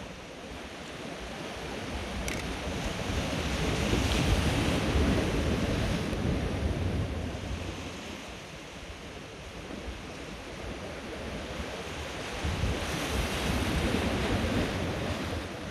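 Sea waves breaking and washing over shoreline rocks, surging twice, about four seconds in and again near the end, with wind buffeting the microphone.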